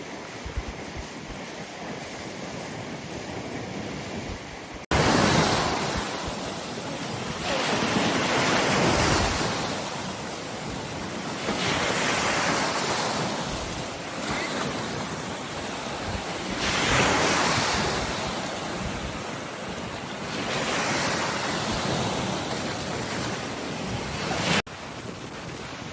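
Wind-driven waves breaking and washing on the shore, with gusts buffeting the microphone. A steadier, quieter wash gives way suddenly about five seconds in to a louder stretch, where a wave surges in roughly every four seconds. Near the end it drops back just as suddenly.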